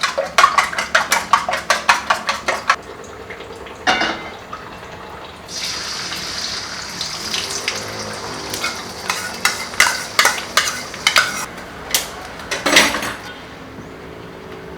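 A quick run of sharp metal clicks against a pan and a single knock. Then food frying in hot oil sets up a steady sizzle while a utensil clacks and scrapes against the pan. The sizzle cuts off suddenly near the end.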